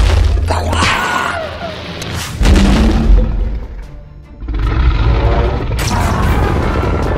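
Cartoon sound effects over background music: a sudden crash of rock bursting apart, with crumbling debris, and a deep boom a couple of seconds later. Then, after a short lull, a long sustained blast with wavering tones sets in, the kaiju's energy beam firing.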